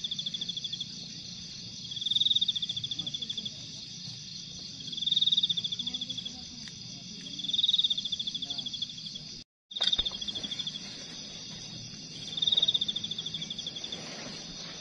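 Night insects calling: a steady high trill, over which a louder pulsed call swells and fades about every three seconds, five times. The sound cuts out for a moment about two-thirds of the way through.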